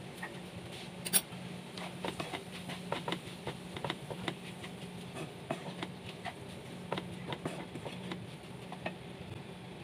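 Wooden spoon stirring minced beef in a non-stick frying pan: irregular scrapes and knocks of the spoon against the pan, the sharpest about a second in, over a steady low hum.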